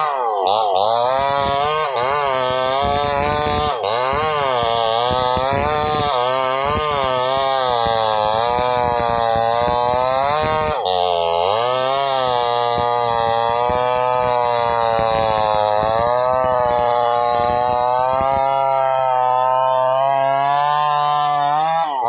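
Two-stroke chainsaw running under load while cutting through wood, its engine pitch repeatedly rising and falling as the saw works back and forth in the cut, with a brief dip about halfway through.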